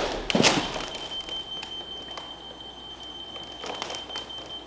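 A sharp knock about half a second in, then scattered light clicks, as a tape measure is handled against a wooden 2x8 box. A faint steady high-pitched tone runs underneath.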